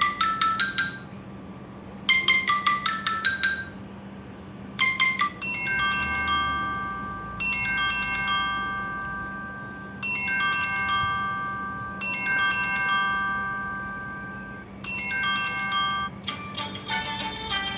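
Samsung Galaxy J3 (2016) ringtone playing, a bright mallet-like chime melody: two quick falling runs of notes, then a phrase of ringing notes repeating about every two and a half seconds. A different, faster run of notes starts near the end.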